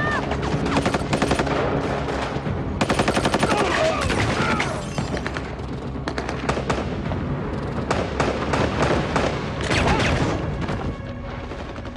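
Automatic gunfire in a movie shootout: repeated bursts of rapid shots. The densest and loudest burst comes about three seconds in, and more bursts follow through most of the rest.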